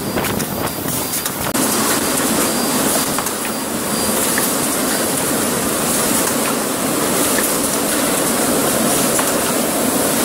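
Automatic rigid box making machine running: a steady, dense mechanical clatter, with quick clicks and knocks in the first second and a half.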